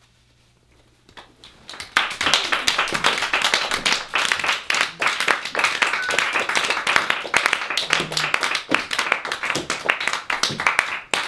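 Audience clapping: a brief hush after the poem's last line, then applause breaking out about two seconds in and keeping up steadily.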